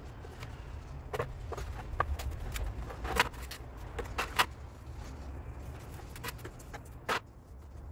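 Irregular clicks and knocks as wet cement-soaked cloth is worked by gloved hands in a plastic basin, with scissors in the basin, over a steady low rumble. The sharpest knocks come about three seconds in, just past four seconds and about seven seconds in.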